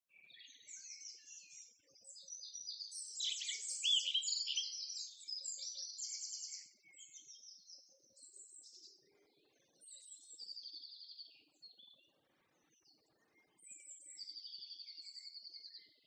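Several songbirds singing, with overlapping chirps and fast trills that are densest in the first seven seconds and then come as separate phrases. A long, even trill runs near the end.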